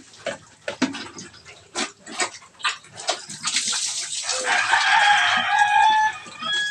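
Water splashing and slapping onto a pregnant sow and the wet concrete pen floor as she is washed by hand, in a run of scattered splashes. From about halfway, a long animal call lasting about two seconds sounds over the splashing.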